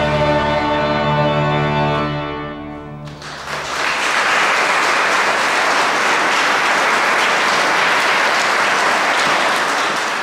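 The final chord of a French hunting horn (trompe de chasse in D) and pipe organ is held and then dies away about three seconds in. Audience applause follows and runs on steadily.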